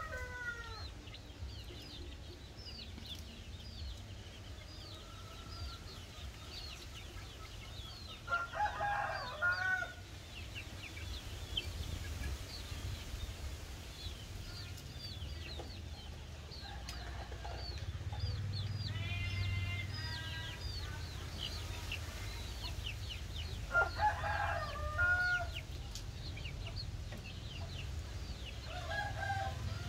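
Chicks peeping almost constantly with short, high, falling chirps while they peck at scattered grain. Several times an adult chicken breaks in with a louder, lower call about a second long. A steady low rumble runs underneath.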